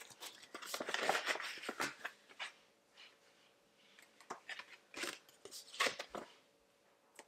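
Close-up rustling and crinkling of packaging being handled, in irregular bursts with a few sharp clicks.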